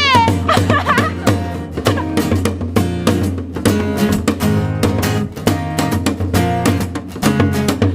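Instrumental music: a plucked string instrument strummed in a quick, even rhythm, with the end of a sung note with wide vibrato just at the start.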